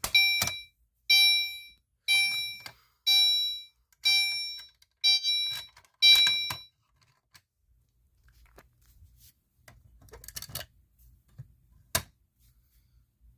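Fire alarm chime sounding, set off by a pulled fire alarm pull station: seven ringing tones about one a second, each dying away, then it stops. A few light clicks follow near the end.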